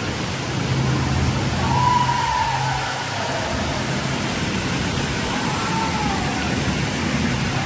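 Steady rush of a waterfall pouring into a lazy river inside a rock cave, with water splashing over the camera partway through, over a low steady hum.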